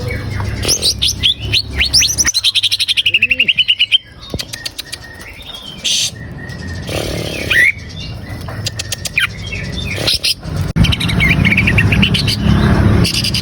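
Green leafbird (cucak ijo) singing a varied, energetic song of high chirps and sweeping whistles, with a fast run of repeated notes a couple of seconds in, over a steady low hum.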